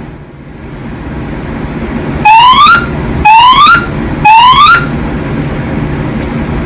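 Fire alarm evacuation speakers sound three rising whoop tones, each about half a second long and about a second apart: the three-pulse temporal evacuation signal that separates the spoken evacuation messages.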